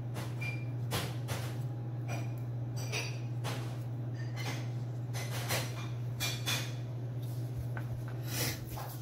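Metal fish-bone tweezers making a series of short, sharp clicks and taps as pin bones are pulled from a raw sockeye salmon fillet, over a steady low hum.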